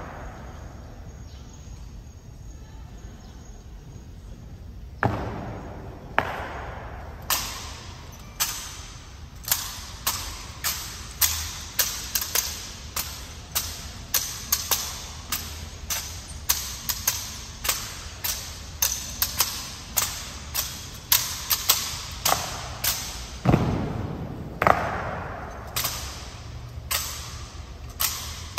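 Honor guard soldiers' hard-soled boots striking a hard floor in a slow, even march, about two sharp steps a second, ringing in a large hall. Two heavier echoing thuds stand out, one about five seconds in and one near the end.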